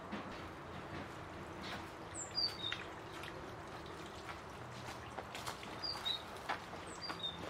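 Water trickling from a hose as whole fish are rinsed in a metal tray, with small splashes and clicks of handling. A small bird calls twice over it, each time a quick run of three falling chirps, about two seconds in and again about six seconds in.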